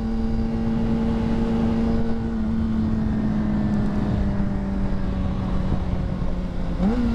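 2009 Honda CBR600RR's inline-four engine running at steady cruising revs, with wind rush on the helmet's chin-mounted mic. The engine note sags slowly from about two seconds in, then the revs rise sharply near the end.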